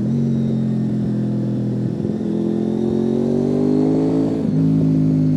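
Honda VFR800FI's V4 engine running through a high-level Bos race silencer while the bike is ridden, the note climbing steadily in pitch under acceleration, then dropping back quickly about four and a half seconds in and holding steady.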